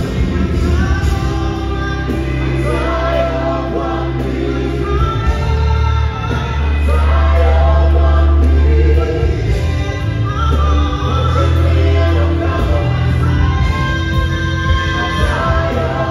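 A live gospel band plays a worship song: a female lead singer and backing vocalists sing over keyboard and a heavy, sustained bass line.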